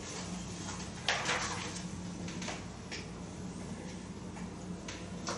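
Room tone with a steady low hum, broken by a few short knocks or rustles; the most distinct comes about a second in.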